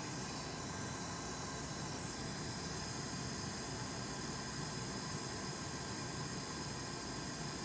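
A steady, even hiss with no distinct knocks or changes.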